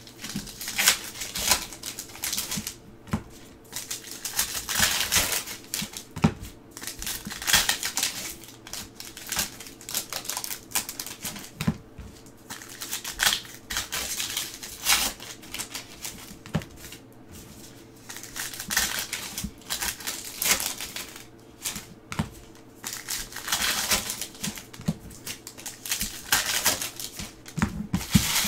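Foil trading card pack wrappers crinkling and tearing as packs are ripped open by hand. The rustling comes in irregular spells with short quieter lulls.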